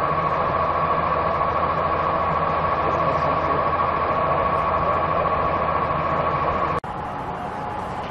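A steady engine or machine running, with a constant high whine over a low hum; about seven seconds in it cuts off abruptly and a quieter steady running sound takes over.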